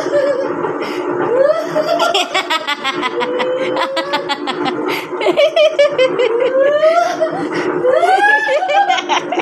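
People laughing hard, in fast runs of ha-ha bursts with rising and falling squeals, over a steady low hum.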